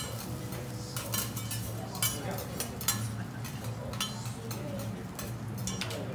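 Metal spatula and steel scraper clinking and scraping against a steel teppanyaki griddle in irregular sharp clicks, the loudest about one, two and three seconds in, over a steady low hum.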